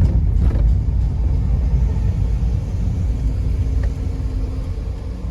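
Car in motion, heard from inside: a steady low rumble of engine and road noise, easing off slightly near the end.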